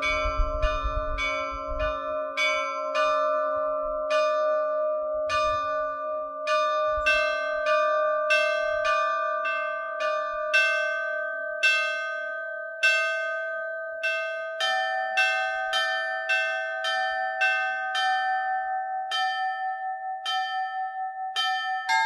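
Church bells ringing the vodosvyatny perezvon, the Orthodox peal for the blessing of water: single strokes on the bells in turn, each leaving a long ringing hum under the next. The strokes come much faster near the end.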